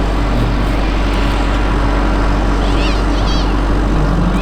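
Radio-controlled scale model helicopter (a Bell 230) running steadily, its motor and rotor making a constant drone with a low hum. A few quick, wavering high chirps come in about three seconds in.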